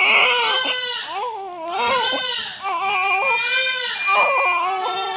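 Newborn baby crying: a run of loud wails, each about a second long, with short breaks for breath between them.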